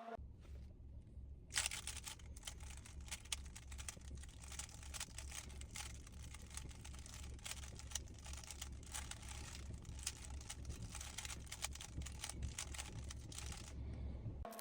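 Rubik's cube being turned fast: dense, irregular plastic clicking of the layers turning, starting about a second and a half in and stopping near the end, over a low hum.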